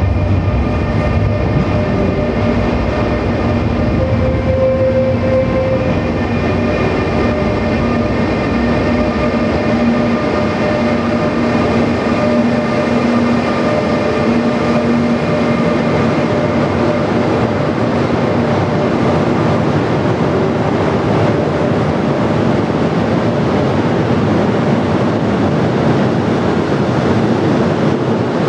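Electric locomotive hauling a freight train of empty car-carrier wagons past under a covered platform, with a steady whine in several pitches over the rumble and clatter of wheels on rails. The whine fades after about twenty seconds, leaving the wagons' wheel noise.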